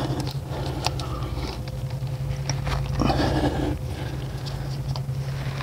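Gloved hands working a fuel injector and the fuel rail into place on a Mazda CX-9's 3.5-litre V6: scattered small clicks and rubbing of parts, with a longer scraping rustle about three seconds in, over a steady low hum.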